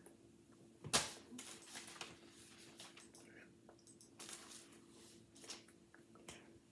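Hands rustling and tapping against each other and clothing during signing: soft scattered rustles with one sharp slap about a second in.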